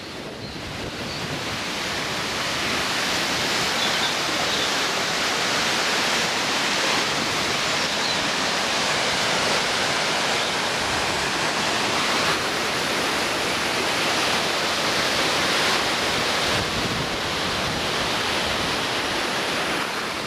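River water rushing over a small weir and sluice gate, a steady white-water rush that grows louder over the first couple of seconds and eases off a little near the end.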